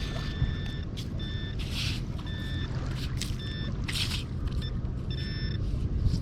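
Metal detector's signal beep, a steady single-pitched tone sounding on and off in stretches of different lengths as it passes over buried metal, turning rapid and choppy near the end. Two short hissy scrapes come in between, over a steady low rumble of wind on the microphone.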